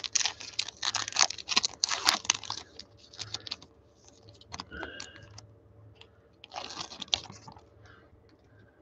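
Foil trading card pack wrapper crinkling and tearing open in the hands, with cards sliding out of it. Dense crackling for the first few seconds, thinning out, then another flurry about two-thirds of the way through.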